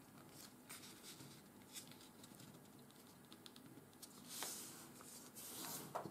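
Faint rustling and soft scraping of a sheet of 80 g/m² office paper being folded and pressed flat by hand on a wooden tabletop, with two brief louder swishes of the paper near the end.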